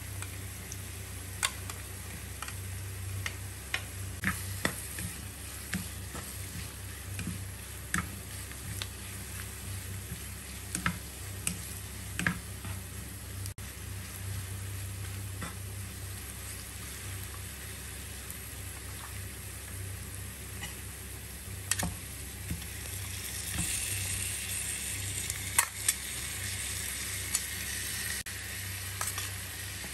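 A wooden spatula knocks and scrapes in a nonstick wok as ginger, garlic, dried chillies and scallion whites stir-fry in oil with a light sizzle, over a steady low hum. About three-quarters of the way through, the sizzle grows louder and hissier as raw pork ribs go into the hot oil.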